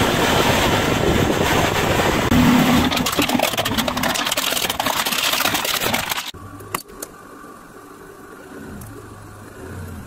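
A car tyre slowly rolls over and crushes objects, including drink cans and bottles, with loud, dense crackling and crunching for about six seconds. Then the sound cuts suddenly to a much quieter scene: a low steady engine hum with a few sharp clicks.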